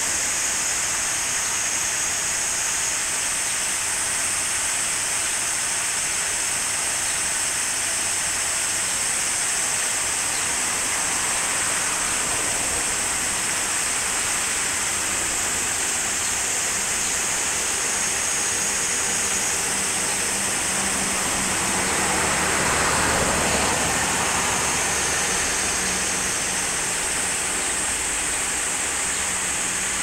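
Water pouring steadily over low stepped weirs in a small river: a continuous rush of falling water, with a low rumble swelling briefly about two-thirds of the way through.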